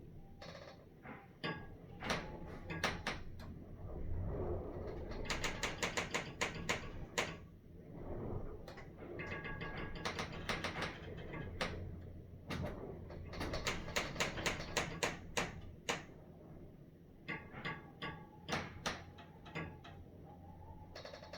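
High-rise building creaking at night: rapid runs of sharp clicks and ticks with drawn-out creaks, coming and going in spells.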